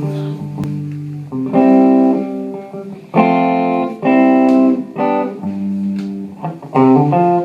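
Guitar playing a run of sustained chords and single notes: several separate attacks, each ringing for a second or so before fading.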